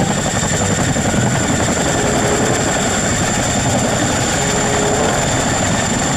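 Boeing CH-47 Chinook tandem-rotor military helicopter hovering low: a loud, steady rapid chop from its twin rotors, with a steady high whine over it.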